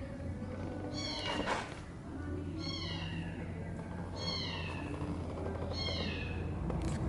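Honda CB250RS-Z single-cylinder engine idling steadily through a hand-bent full exhaust, its low hum firming up about two seconds in. Over it an animal calls four times, a falling cry about every second and a half.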